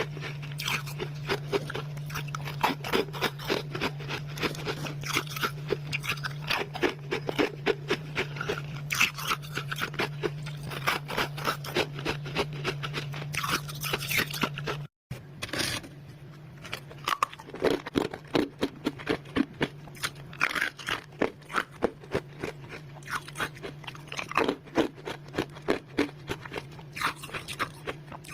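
Freezer frost being bitten and chewed close to the microphone: a dense run of rapid, crisp crunches over a steady low hum, broken by a brief dropout about halfway through.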